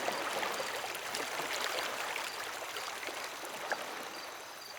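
Sea water in a harbor lapping and trickling: a steady watery wash with faint little splashes, easing off slightly near the end.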